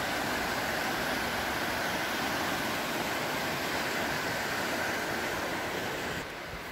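Steady rush of a fast, rocky river running white over boulders, a dense, even noise. It drops suddenly a little in level near the end.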